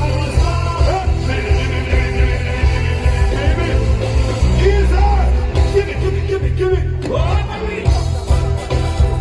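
Live band music with a heavy bass beat and a singing voice, played through a sound system during a sound check.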